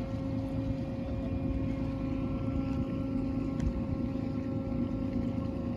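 Steady engine drone, holding an even pitch throughout.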